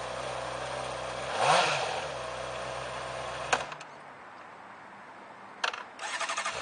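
Honda CBR600RR's 600cc inline-four idling, with a short throttle blip about a second and a half in. A little past halfway the engine cuts out with a click, two more clicks follow, and near the end the starter cranks in quick even pulses as the engine comes back to life.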